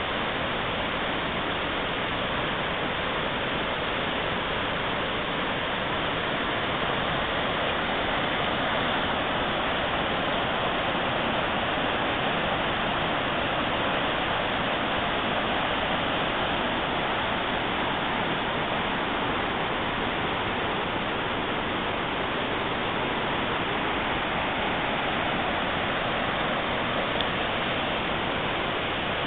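Mountain river rushing over boulders in whitewater rapids: a steady, unbroken roar of water.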